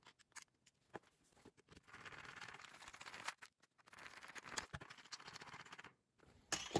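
Small screwdriver turning a screw into a plastic battery-pack housing: faint scratchy grinding in two spells of a second or two each, after a few light handling clicks.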